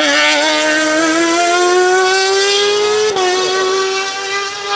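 Race car engine accelerating hard out of a hairpin, its revs climbing steadily, with a quick upshift about three seconds in before it pulls on again.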